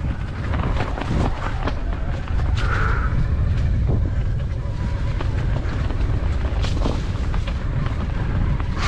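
Mountain bike rattling and knocking over a rough, rocky trail on a fast descent, with wind rushing over the microphone. A short squeal about three seconds in.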